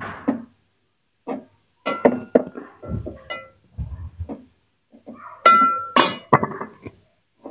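A metal spoon and spatula scraping and clinking against a steel cooking pot, with a steel lid knocking, as halwa is stirred and scooped. The clinks come irregularly, some ringing briefly, and the loudest are two sharp clanks about five and a half and six seconds in.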